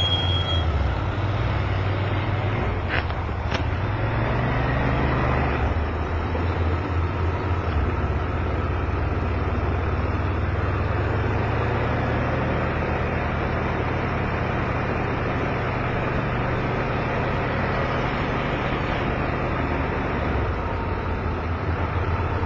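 Motorbike engine running under way with heavy wind and road rush on an on-board camera microphone; the engine pitch rises briefly about five seconds in as the bike accelerates.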